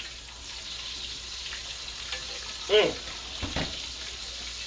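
Breaded chicken pieces sizzling steadily as they fry in hot oil in a large skillet. A short vocal sound about three seconds in is the loudest moment.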